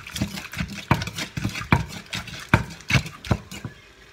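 Wooden pestle pounding som tam ingredients in a clay mortar, knocking about three times a second. The pounding stops near the end.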